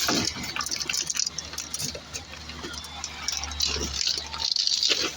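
Wet concrete sloshing and splashing as it is poured for a slab, over the steady low hum of a running machine that cuts out briefly a little after four seconds in.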